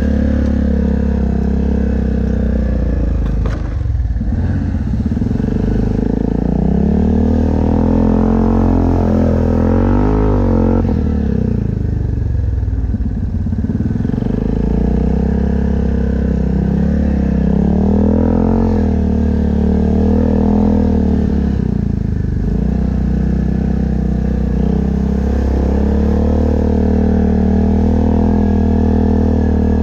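Yamaha Grizzly ATV engine running under way on a dirt trail, its pitch rising and falling several times as the throttle is worked.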